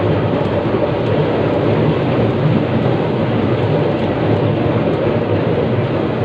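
Sydney C-class single-truck tram running along the line, heard from inside its saloon: a loud, steady rumble.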